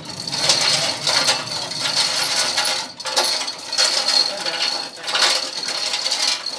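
Manual 2-ton chain block being hauled to lift a steel WF beam: the chain rattles and clinks through the hoist in repeated pulls, with the hoist's ratchet clicking.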